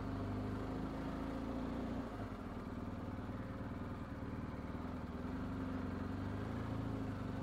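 BMW R1250 GS Adventure's boxer-twin engine running at low revs as the motorcycle rolls slowly, the engine note dipping briefly about two seconds in.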